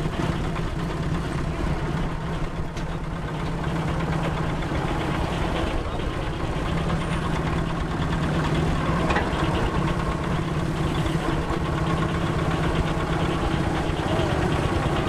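Case steam traction engine running steadily under load, belted to a portable sawmill: a continuous mechanical running sound with a steady low hum.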